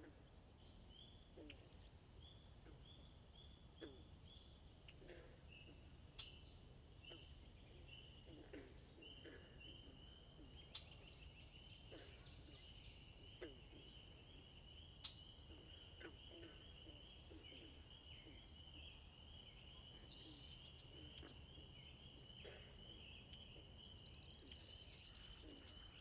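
Faint natural outdoor ambience: short high chirps repeating every second or so, a steady high trill that sets in about ten seconds in, and scattered short low calls.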